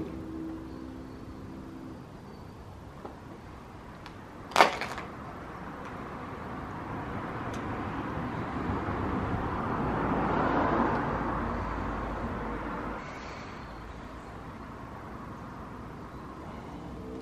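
A road vehicle passing: its noise swells over several seconds, peaks about ten seconds in, then fades. One sharp knock about four and a half seconds in.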